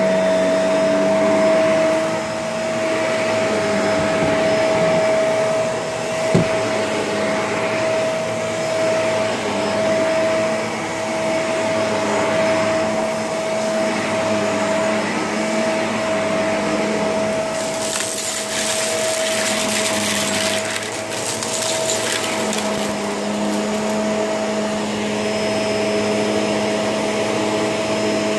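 Shark vacuum cleaner running with a steady high motor whine over a rushing hiss. There is a single sharp knock about six seconds in, and later a few seconds of crackling, rattling hiss.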